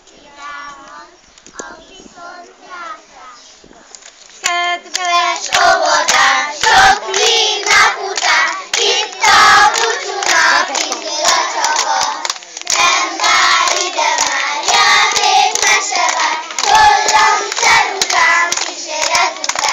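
A group of young children singing a song together and clapping their hands along with it; the singing and clapping start about four seconds in, after some quieter voices.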